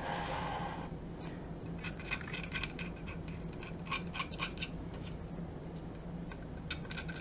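Hobby scraper tool scraping the mould line off the spine of a hard plastic miniature: a brief rustle at the start, then a series of short, quick scratching strokes.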